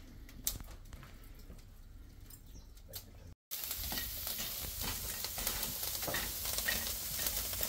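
Meat sizzling on a charcoal grill, with fat popping and crackling over the hot coals. The sizzle is faint at first and turns suddenly louder after a brief drop-out about three and a half seconds in.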